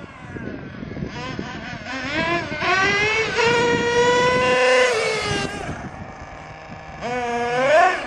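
Small two-stroke nitro engine of a radio-controlled monster truck revving up as it drives, holding a high whine for a couple of seconds, then dropping back. It revs up again near the end.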